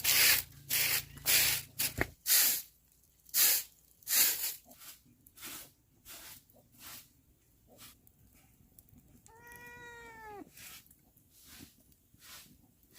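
A run of short, noisy scraping or rustling strokes, about two a second, that fades out after about four seconds. Then a single drawn-out cat meow, about a second long, around ten seconds in.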